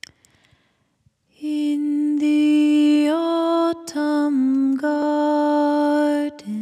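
A single voice singing a slow, lullaby-like song, holding long steady notes in short phrases. It begins after about a second and a half of near silence.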